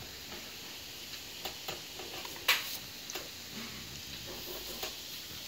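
Quiet room tone: a low steady hiss with scattered faint clicks, one sharper click about two and a half seconds in.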